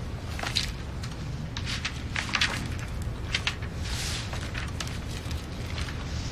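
Light rustles and clicks of things being handled at a wooden counter, several short separate strokes over a low steady hum.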